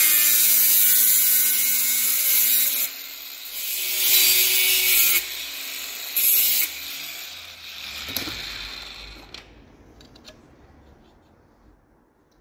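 Bench grinder running with a steady whine while a copper pipe is pressed against the spinning wheel, giving loud harsh grinding in three stretches. After the last one the grinder is switched off and winds down, fading out near the end.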